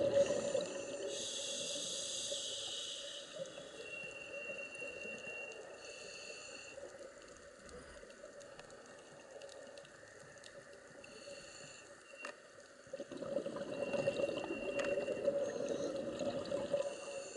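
Scuba regulator breathing heard underwater: exhaled bubbles rush out in bursts every few seconds over a continuous low gurgling. The bubbling swells near the start and again in the last few seconds.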